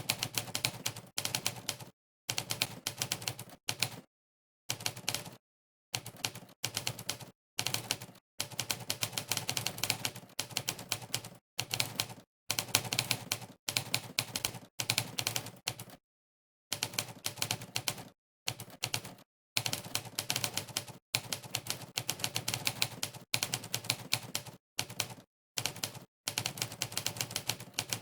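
Typewriter keystroke sound effect from a typing-test website, one sampled typewriter clack per key pressed. It comes as quick, rapid clatters of a second or a few seconds each, broken by short gaps of dead silence.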